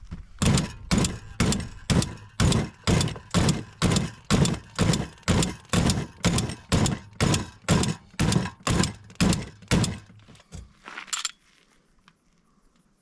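Repeated hard knocks of a pistol's Votatu PMD504 red dot sight being hammered against the edge of a plastic folding table as a durability test. There are over twenty blows at an even pace of about two a second, then one more after a short pause.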